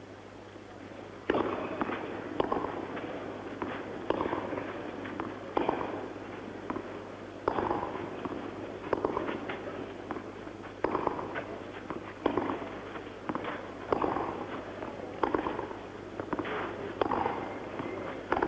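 Tennis rally: the ball is struck back and forth by the rackets, a sharp hit about every one to one and a half seconds, starting about a second in, more than a dozen hits in all.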